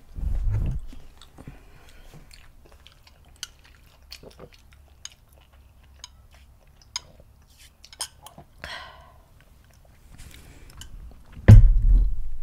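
Close-miked chewing of fried shrimp, with small wet mouth clicks, a short slurp about two-thirds of the way in, and low thumps at the start and near the end, the one near the end the loudest.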